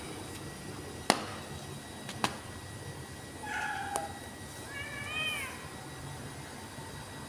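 Two sharp clicks about a second apart, then a kitten mewing twice: a short, fairly flat mew, then one that rises and falls in pitch.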